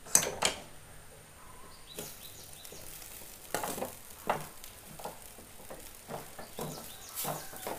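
A spoon stirring grated coconut into dry, crumbly corn upma in an aluminium kadai: irregular scrapes and light knocks against the pan, about a second apart.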